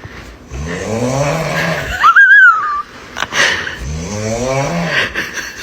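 A person snoring, two long harsh, rough snoring breaths, likened to a chainsaw. Between them, about two seconds in, a short loud high whistle rises and falls.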